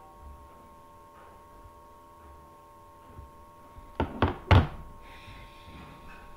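Three quick thumps in a row about four seconds in, the last the loudest, over a faint steady background tone.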